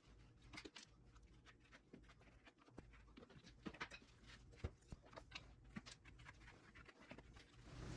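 Near silence: a low steady hum with faint, scattered light clicks and taps, like small handling noises.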